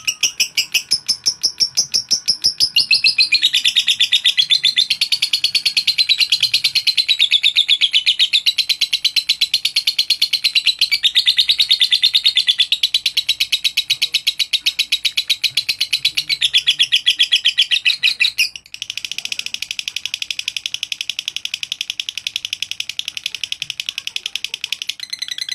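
Masked lovebird singing a long, unbroken ngekek: a rapid, high chattering of chirps without pause. After an abrupt break about three-quarters through, the chatter goes on steadier and a little quieter.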